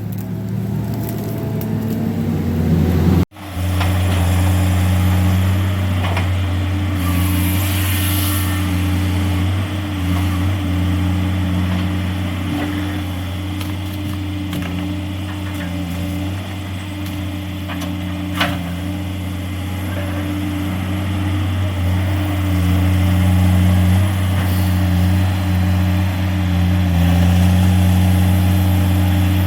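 Diesel engine of heavy logging equipment running steadily with a low, even hum. The sound cuts out for an instant about three seconds in, then carries on unchanged.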